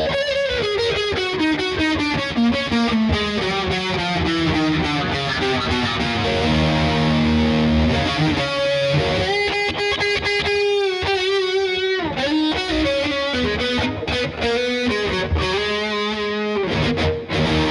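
Schecter C-1 Hellraiser electric guitar played with a distorted tone: fast descending lead runs broken by long held notes with vibrato.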